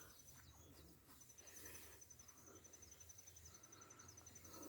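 Near silence with a faint insect chirping in a rapid, even pulse, starting up about a second in.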